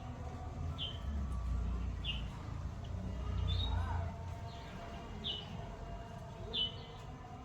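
A bird chirping, short high chirps repeated about once a second, over a low rumble.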